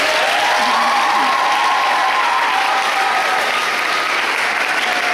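Audience applauding steadily, with a few drawn-out voices calling out over the clapping in the first few seconds.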